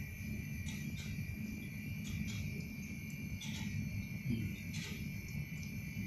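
Steady chorus of night insects, crickets trilling in a continuous high buzz over a low rumble, with a few short clicks scattered through it.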